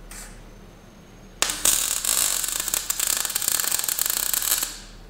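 MIG welder's arc crackling for about three seconds as a tack weld is laid on steel. It starts about one and a half seconds in and stops shortly before the end.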